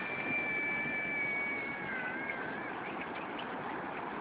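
Surf washing on a beach, a steady rushing noise. Over it, two faint high steady tones hold for the first two and a half seconds and dip in pitch as they end.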